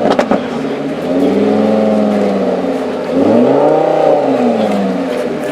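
A supercar's engine revving twice, each rev rising in pitch and falling back smoothly, the second one louder. A few sharp cracks at the very start.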